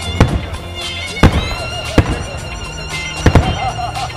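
Starmine fireworks shells bursting with five sharp bangs in under four seconds, two close together near the end, over music with long held notes.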